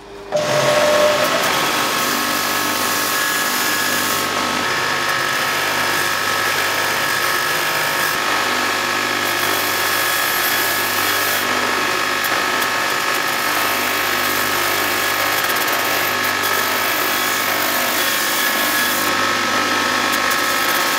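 Belt grinder (linisher) running with a forged steel sword blade pressed against its sanding belt, grinding the edges straight: a loud, steady grinding hiss with a high whine over it. It starts abruptly just after the beginning.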